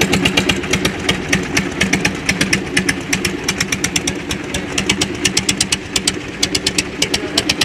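Vintage Svoboda tractors' single-cylinder engines chugging as they drive past, with sharp, loud exhaust beats several times a second.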